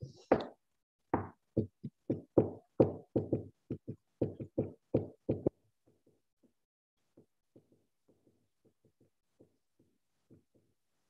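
A run of loud knocks, about three a second, for the first five seconds or so, then fainter, scattered knocks. Hands knocking on the desk close to the microphone.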